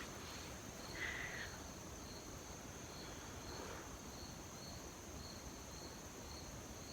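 Insects chirping outdoors: short high chirps repeating about twice a second over a steady high trill, faint throughout.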